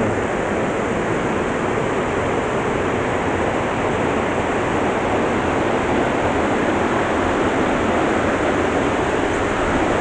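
Steady, unbroken rush of water from a waterfall.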